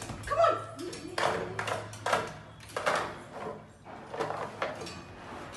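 A dog's paws tapping and scraping against window glass: a series of separate sharp taps, about one every half second to a second. A short whine comes near the start.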